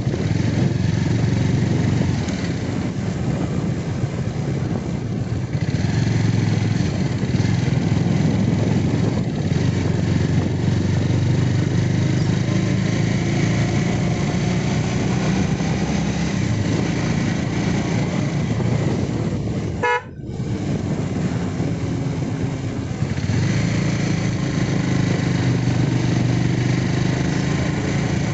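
Motorcycle engine running steadily while riding, with wind and road noise over the microphone. About twenty seconds in there is a short horn beep and a momentary dropout, and the engine eases off briefly before picking up again.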